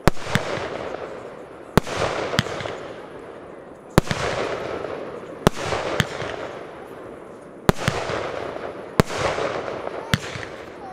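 Aerial firework shells bursting in a display: about eight sharp bangs, one every second or two, each followed by a fading hiss.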